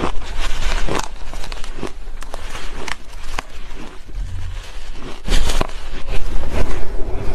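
Shaved ice crunching and crackling as it is bitten from a heaped spoonful and chewed, in scattered crisp crackles with a louder burst a little after five seconds in.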